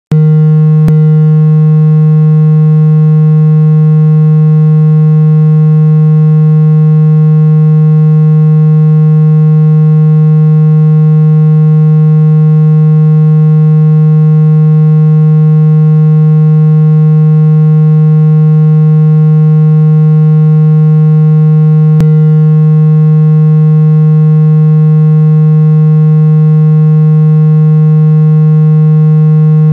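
Synthesized speaker-cleaning tone: a loud, steady, low buzzing tone that holds one pitch without a break, played at full volume so the speaker cone vibrates trapped water out of a phone speaker.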